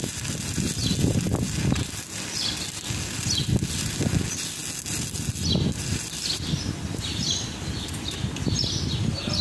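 Stick (shielded metal arc) welding: the electrode's arc crackling and sputtering steadily. The arc goes out near the end.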